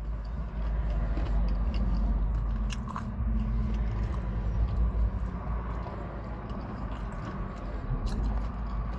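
A person chewing and biting into rib tips close to the microphone, with small wet clicks, over a steady low rumble.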